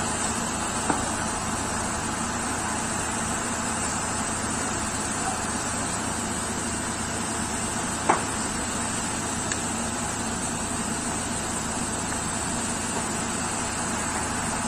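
Steady rushing roar of a large fire burning through pole-framed structures, with a few sharp pops, the loudest about eight seconds in.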